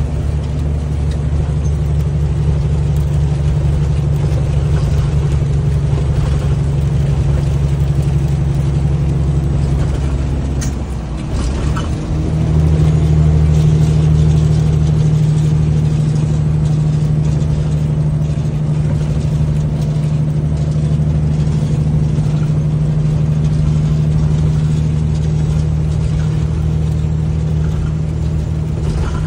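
Semi truck's diesel engine droning steadily while driving, heard inside the cab. About eleven seconds in the note dips and breaks off briefly, then comes back louder.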